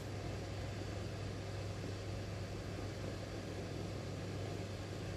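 Steady low hum with an even hiss from a running kitchen appliance, unchanging throughout.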